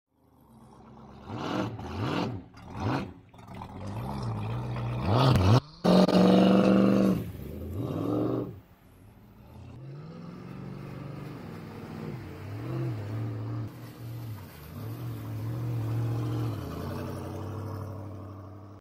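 Motorboat engine revving, its pitch rising and falling several times in the first half with a brief drop-out about six seconds in, then running more steadily with a wavering pitch as the boat pulls away.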